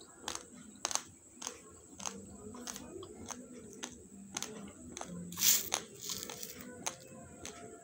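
Dry raw basmati rice being crunched between the teeth, with sharp cracks roughly every half second. About five seconds in there is a louder rustling rasp as a plastic spoon scoops through the dry grains in a metal bowl.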